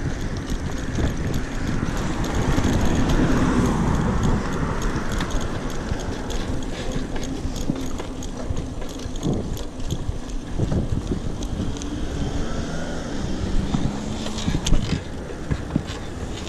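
Mountain bikes riding along a dirt trail: a steady rush of tyre and wind noise, with frequent small clicks and rattles from the bikes.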